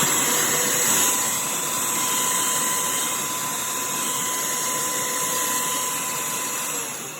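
Shark CH951 UltraCyclone cordless handheld vacuum running steadily with a high whine as it tries to suck up acorns. It is switched off near the end and its motor starts to wind down.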